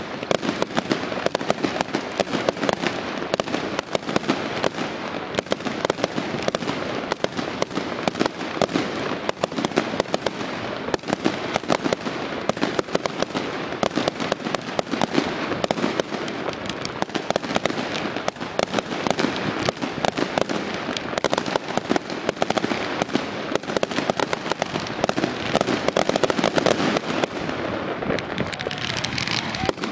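Fireworks going off in rapid succession: a continuous barrage of sharp bangs and crackling stars, several reports every second with no break.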